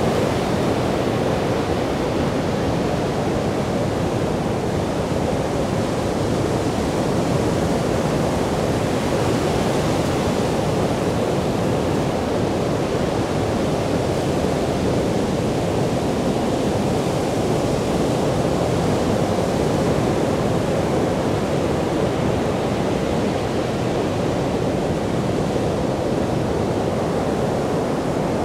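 Sea surf breaking on a sandy beach: a steady, unbroken rush of waves.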